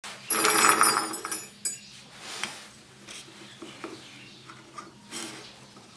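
Steel twist drill bits clinking and ringing against one another as a handful is picked up, loudest in the first second and a half. This is followed by lighter taps and rubbing as a bit is set into a wooden jig.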